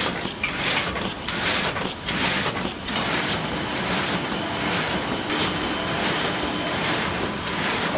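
MK1060 automatic sheet-fed die-cutting press running, its cycling strokes making a rhythmic rushing clatter about twice a second. The clatter settles into a steadier whir with a faint hum after about three seconds.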